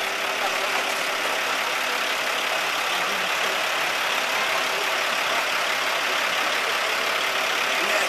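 Fire department aerial ladder truck's engine idling, a steady hum.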